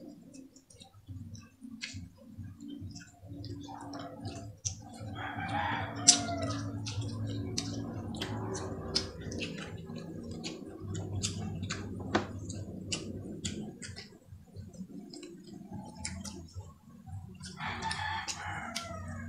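A rooster crowing twice, a few seconds in and again near the end, over close, frequent clicks and smacks of people chewing and eating with their hands.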